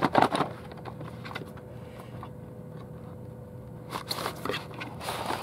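Packaging being handled by hand: a few short rustles and scrapes near the start and again around four seconds in, with a quieter stretch between.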